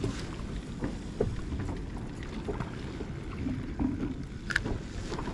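Wind rumbling on the microphone, with a few small clicks and knocks scattered through it.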